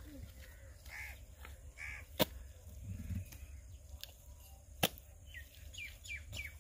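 Birds calling over a steady low rumble: two short calls in the first couple of seconds, then a quick run of falling chirps, about three a second, near the end. Two sharp clicks, the loudest sounds, come about two and five seconds in.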